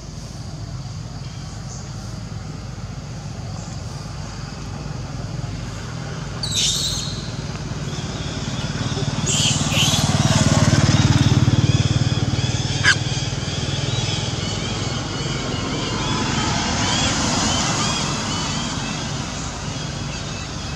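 A motor vehicle's engine passing, its low hum swelling to its loudest about halfway through and then easing off. Young monkeys give a few brief high squeals before the peak.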